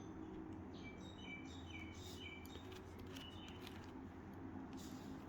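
Plastic 4x4x4 Rubik's Cube (Rubik's Revenge) layers being turned by hand, giving a few faint clicks. Short, high chirps sound in the background throughout.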